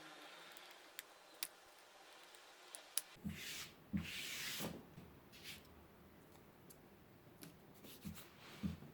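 Handling noises from cardboard crafting work: light clicks and taps, with two short scraping, rubbing sounds about three and four seconds in.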